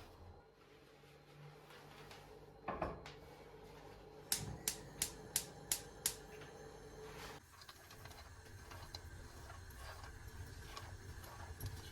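A single knock, then a quick run of six sharp taps, about three a second, then faint scattered clicks.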